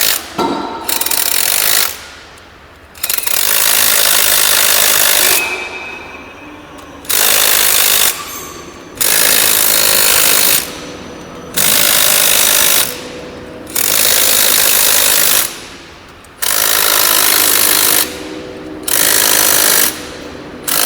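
Impact gun hammering in repeated bursts of one to two seconds, about eight in all with short pauses between, as it runs down the M12 x 85 grade 8.8 bolts of a locomotive axle box's thrust collar clamping plate one after another in diagonal order.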